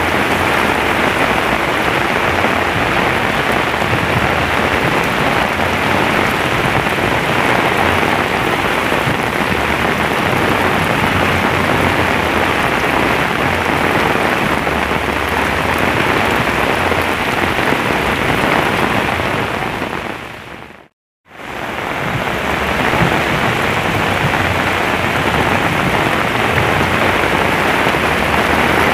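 Torrential rain pouring onto a lake and a paved path, a loud, dense, steady hiss. The sound fades and cuts out for a moment about two-thirds of the way through, then comes back.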